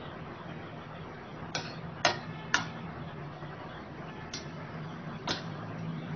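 Stainless steel slotted spoon clinking against a steel pan while stirring steamed amla in palm jaggery syrup: five sharp clinks, the two loudest close together about two seconds in, over a low steady hum.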